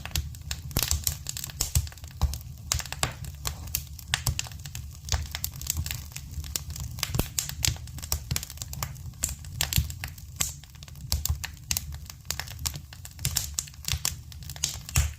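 Campfire crackling: burning wood giving irregular sharp pops and snaps over a steady low rumble.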